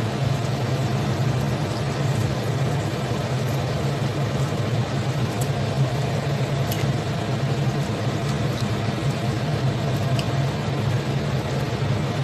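Steady low hum of a running electric cooktop under a pan of ginger-garlic honey sauce cooking, with a few faint ticks from the pan around the middle.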